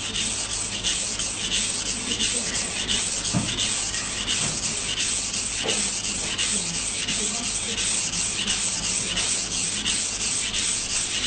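Steel knife blade stroked back and forth on a wet whetstone, guided by a clip-on guide rail: a steady, rhythmic rasping scrape in quick, even strokes. The unchanging sound is the sign of a constant sharpening angle, which the guide rail holds.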